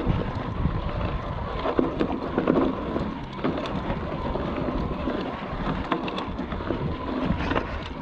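Electric mountain bike rolling over a rough dirt trail, wind buffeting the handlebar-mounted camera's microphone, with tyre rumble and scattered knocks and rattles from the bike over bumps.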